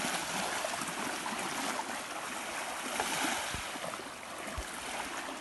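Shallow water lapping and sloshing at the shoreline as a person wades out, a steady rushing wash with two dull low bumps near the end.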